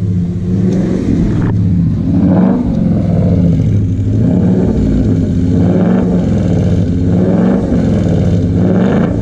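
A cammed car engine idling with an uneven, choppy lope, blipped into a few short, light revs.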